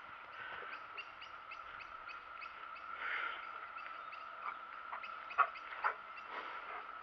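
Steady background chorus of frogs trilling, a continuous even pitch with a faint rapid chirping above it. Two sharp knocks stand out about five and a half and six seconds in.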